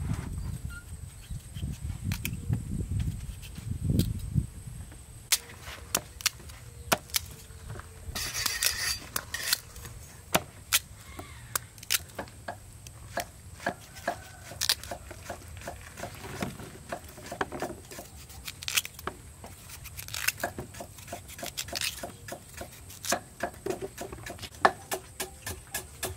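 Kitchen knife cutting chunks off raw peeled sweet potatoes and potatoes held in the hand, with pieces dropping into a woven bamboo basket: scattered crisp cutting clicks. Near the end, a faster, even run of cleaver chops on a wooden chopping block.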